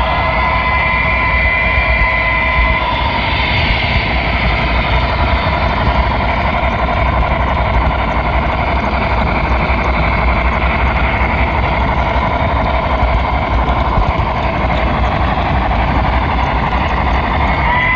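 HO-scale model train rolling along the track, heard up close from a camera riding on the pushed flatcar: a loud, steady rattle of small wheels on the rails. A thin whine fades out about three seconds in and comes back near the end.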